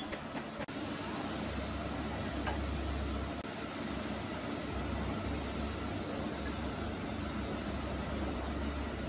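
A machine running steadily, a low hum under an even noise.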